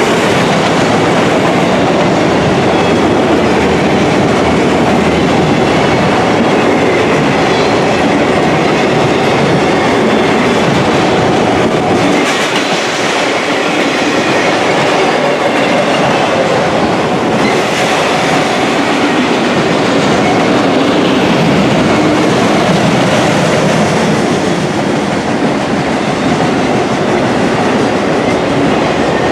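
Autorack freight cars rolling past at close range: a steady, loud rumble and rattle of steel wheels on the rails, with clickety-clack over the joints.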